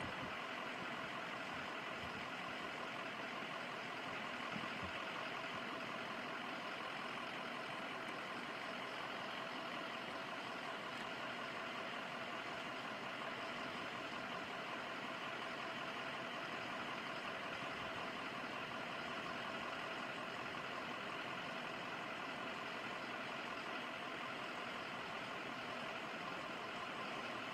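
Steady, unchanging hum of an engine running at idle.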